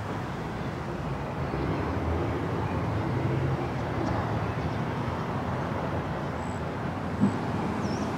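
Outdoor city ambience: a steady rumble of distant road traffic, swelling slightly in the middle, with a few faint high chirps and a small knock near the end.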